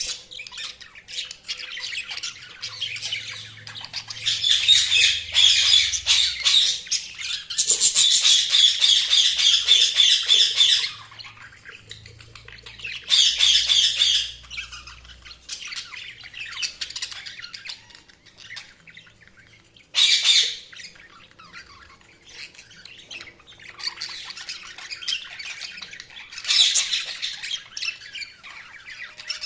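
Budgies chattering and squawking in uneven bouts, several loud stretches of fast warbling chatter with quieter twittering between.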